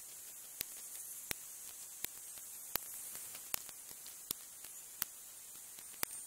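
Faint steady high hiss of recording noise, with a faint sharp click about every three-quarters of a second.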